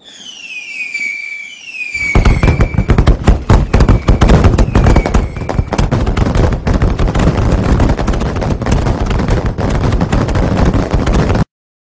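Fireworks: whistles falling in pitch for about two seconds, then a long run of rapid, crackling bangs that cuts off suddenly near the end.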